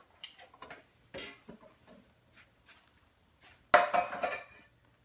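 Kitchen handling sounds: a few faint taps and knocks, then a sudden loud clatter of metal cookware a little under a second long, near the end.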